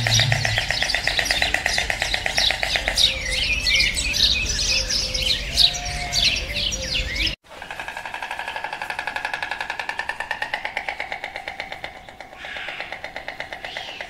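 Many small birds chirping and twittering in quick, overlapping calls, cut off abruptly about seven seconds in. A steady, rapidly pulsing trill with several held tones follows.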